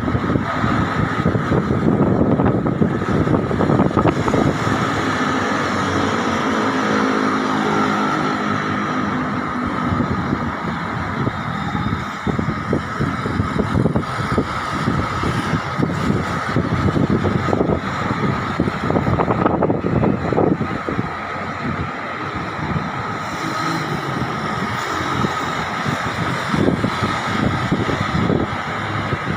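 Strong wind buffeting the microphone, mixed with road traffic; a vehicle's engine hum rises and falls as it passes about a quarter of the way in.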